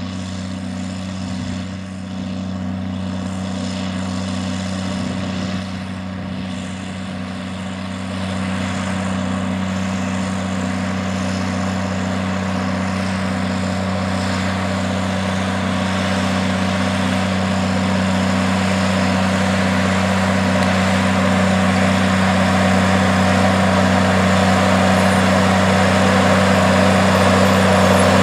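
John Deere 4630 tractor's turbocharged six-cylinder diesel running steadily under load while pulling a 12-row corn planter, growing louder as the tractor approaches.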